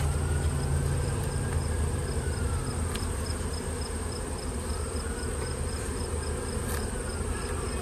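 Honeybee colony buzzing from an open, strongly populated hive: a steady, unbroken hum. A thin, steady high insect trill runs over it.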